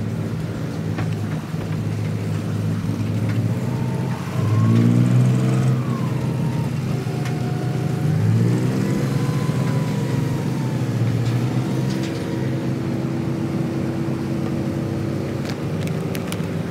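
Diesel engine of a wooden abra water taxi running with a steady low throb, revving up twice, about four and about eight seconds in, as the boat manoeuvres.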